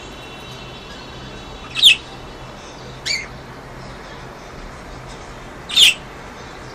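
Budgerigars giving three short, sharp, squawky calls, each a quick falling chirp, the first about two seconds in, the next a second later, and the last near the end.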